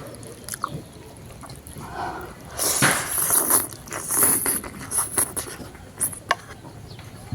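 A person eating spicy noodles close to the microphone: mouth and utensil noises with scattered small clicks, and a louder, noisy stretch of about two seconds near the middle.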